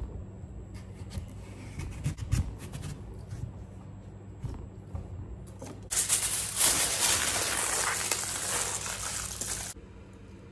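Aluminium foil crinkling and rustling for about four seconds as a sheet is handled and wrapped, the loudest sound, stopping abruptly near the end. Before it, a few soft thumps and light knocks on a kitchen counter, over a low steady hum.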